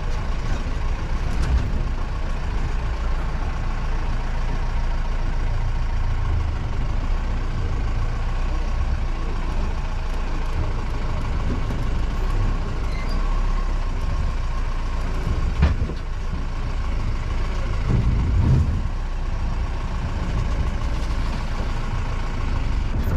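Off-road jeep running under load with a steady low rumble as it jolts along a rough, narrow dirt track, with a sharp knock about two-thirds of the way through.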